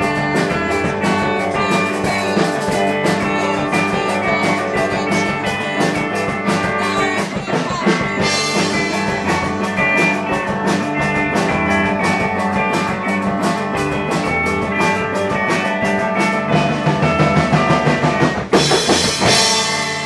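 Live rock band playing: electric guitars over a drum kit keeping a steady beat, closing on a loud crash of cymbals and chord about a second and a half before the end as the song finishes.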